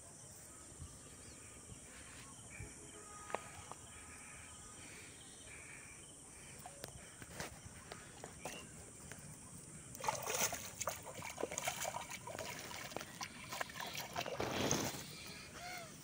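Water at a riverbank, faint at first under a steady high hiss, then from about ten seconds in, irregular sloshing and splashing at the surface around the fishing line.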